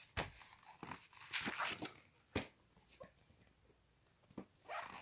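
Quiet handling noises: several sharp clicks and knocks, the loudest about two and a half seconds in, with a brief rustle between one and two seconds in.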